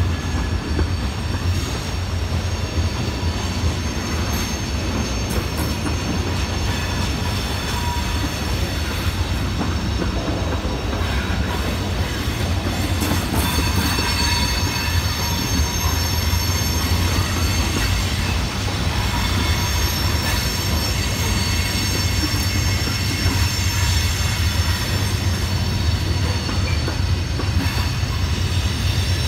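Freight train of covered hoppers and tank cars rolling past at steady speed: a continuous low rumble of wheels on rail, with several steady high squealing tones from the wheels.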